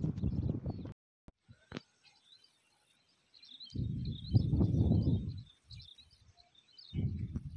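Small birds chirping faintly and repeatedly in the background. A low rumble on the microphone cuts out about a second in, comes back in a burst midway, and returns near the end.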